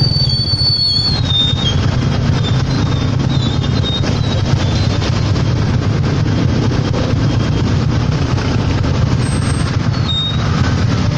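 Tricycle's motorcycle engine running steadily, heard from inside the sidecar, with a noisy rush over it. Short faint squeaks about a second in and again near the end.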